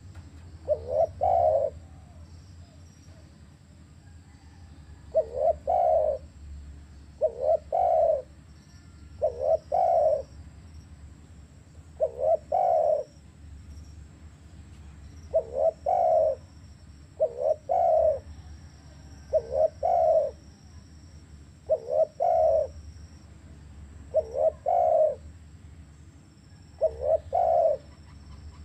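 Spotted dove (tekukur) singing its cooing song: each phrase is a quick low note or two followed by a longer coo, repeated about every two to three seconds, around eleven times.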